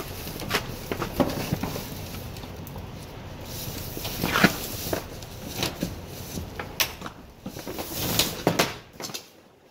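Scattered knocks and clicks over a steady background hiss, then work boots stepping on the trailer's wooden deck near the end.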